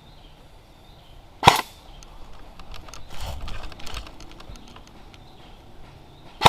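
AR-15/M4-style airsoft rifle firing single shots: two sharp cracks about five seconds apart, the second at the very end. Between them, about three seconds in, a second of quieter knocks and rustling.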